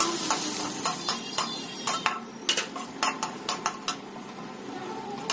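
A plastic spatula stirring and scraping vegetables and dry ground spices in a metal kadai, knocking against the pan's side and bottom in irregular clicks and taps, a few a second.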